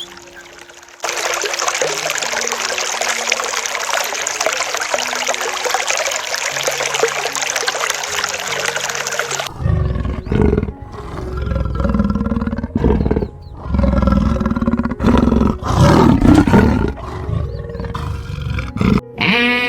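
A big cat roaring and growling in a run of deep, heavy bursts through the second half, after about eight seconds of a steady, loud hissing noise, with faint background music underneath.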